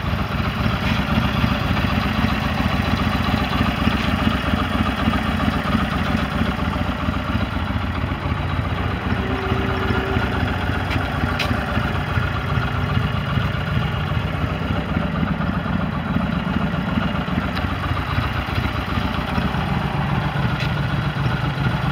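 2008 Yamaha Road Star's air-cooled V-twin idling steadily.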